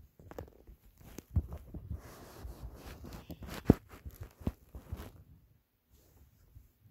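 Irregular clicks, taps and rustling of hands handling clear tape and the tape-wrapped ball. One sharper knock comes about halfway through, and the sounds die away near the end.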